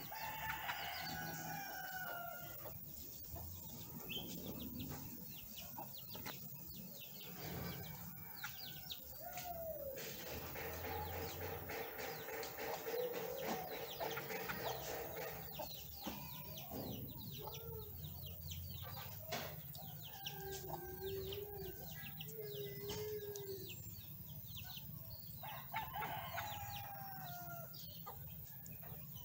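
Birds calling: a few long, falling calls and many quick, high chirps.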